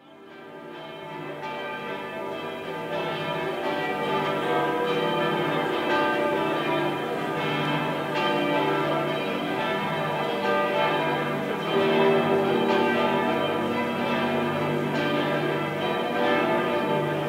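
Church bells of Mariazell Basilica pealing, several bells striking and ringing over one another in a continuous full peal. The peal fades in over the first few seconds.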